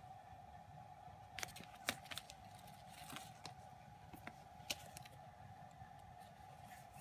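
Clear plastic shrink-wrap and album packaging being handled: a few scattered, sharp crinkles and taps during the first five seconds, over a faint steady hum.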